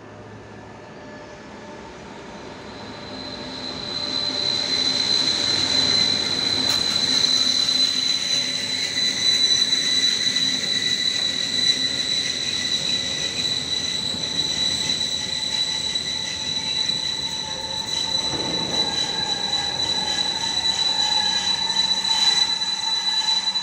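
Freight train of tank wagons entering a siding, the wagon wheels squealing steadily in a high, piercing tone that swells over the first few seconds and then holds.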